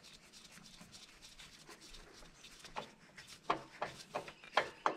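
Faint handling sounds of an oil filter being unscrewed by hand from a Kohler lawn mower engine: quiet at first, then a few short, sharp clicks and taps in the second half.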